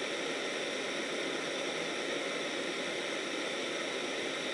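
Handheld gas torch on a fuel cylinder burning with a steady, even hiss as it heats an enamel-coated bead on a mandrel.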